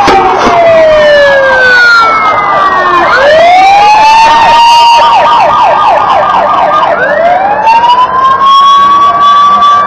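Electronic sirens of an ambulance and fire engines, at least two overlapping. Slow wails fall and rise in pitch, give way to a fast warbling yelp from about four to seven seconds in, then swing back up into a long wail held high near the end.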